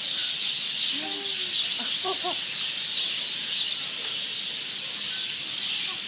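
A flock of small birds chattering steadily in a dense, high-pitched wash. A few short rising-and-falling cries stand out about one and two seconds in.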